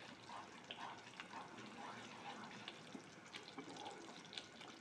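Thick chili paste for sambal tumis bubbling faintly in a nonstick wok, with scattered small pops and spatters as a wooden spatula stirs it. The paste is being fried down on low heat until it is cooked through and the oil separates.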